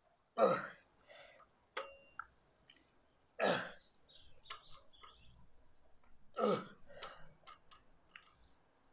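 A man breathing out hard with a short grunt on each rep of a chest-supported dumbbell row. There are three forceful exhales, about three seconds apart, each falling in pitch. Small metallic clicks and clinks from the plate-loaded dumbbells come between them.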